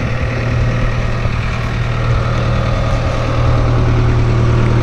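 Diesel engine of the heavy machine hooked to the scraper, running steadily with a deep hum that grows a little louder over the first few seconds.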